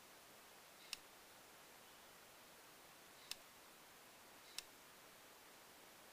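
Three sharp single clicks from the trigger and switch mechanism of an airsoft MK18 electric rifle's lower receiver, worked by hand. The first comes about a second in, the other two a little over a second apart near the middle. No motor runs.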